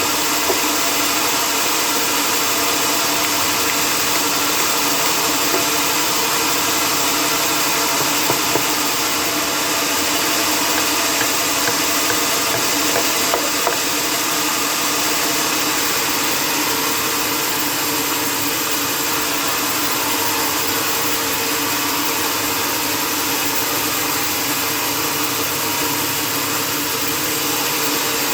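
Sawmill machinery running steadily, with a constant hum of several steady tones over a broad hiss and a few faint clicks partway through.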